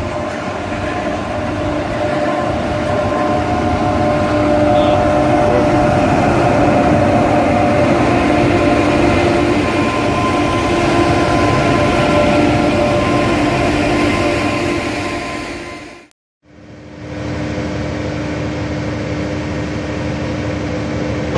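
Transnet electric freight locomotives running past at close range: wheel-on-rail noise with several steady humming tones. The sound breaks off about 16 seconds in, then another electric locomotive, a class 7E, is heard approaching with a steady low hum.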